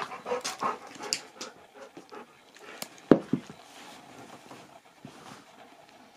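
Siberian husky panting and sniffing in quick short puffs, nose close to a chocolate Easter egg. A sharp knock about three seconds in, with a smaller one just after, is the loudest sound.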